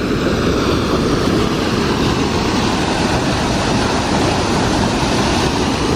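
Water pouring over a river weir: a steady, loud rushing roar.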